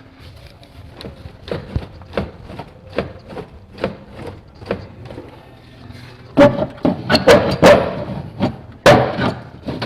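Shop work on a car: a run of separate knocks, about two a second, then a louder cluster of sharp bangs starting about six seconds in, with one more hard bang near the end.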